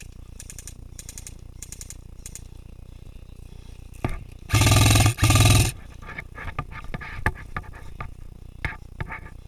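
Two close bursts of full-auto fire from an airsoft electric gun, each about half a second long, back to back about four and a half seconds in. Fainter bursts of distant airsoft fire come before them, and scattered sharp clicks and pops follow.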